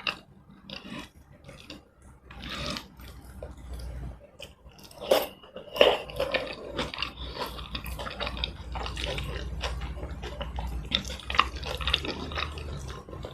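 Close-miked eating sounds: wet chewing, lip smacks and mouth clicks of someone eating tomato rice and chicken in red chilli sauce, with a few louder bites about five to six seconds in.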